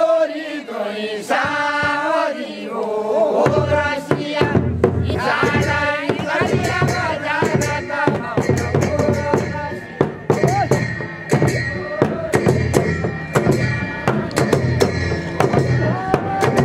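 Group of men singing a folk song together; about three and a half seconds in, drumming comes in with a fast, steady beat under the singing.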